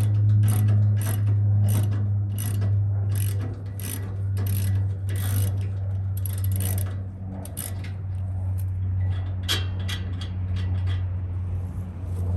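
Ratchet wrench being worked on a bolt in repeated strokes, about two a second, then slower with pauses in the second half, over a steady low hum.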